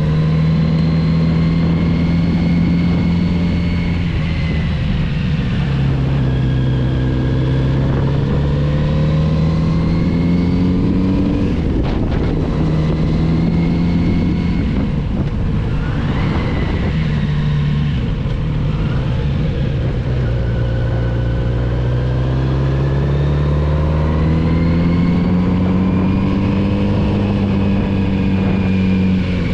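Kawasaki Z900RS inline-four engine under way, its revs rising and falling slowly through the bends, with a sharp drop in pitch about twelve seconds in.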